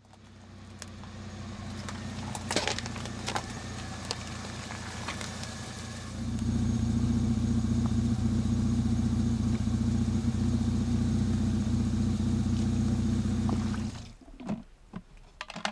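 Jeep Wrangler engine idling steadily, with a few sharp knocks a few seconds in. The idle grows louder about six seconds in and cuts off suddenly near the end.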